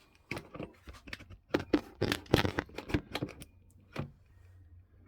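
Handling noise: a quick, irregular run of clicks and knocks, as of objects or the recording phone being moved about. It stops about four seconds in.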